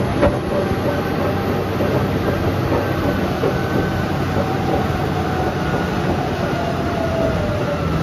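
Caterpillar D11 bulldozer running steadily as it travels, its diesel engine and steel tracks making a continuous clattering rumble.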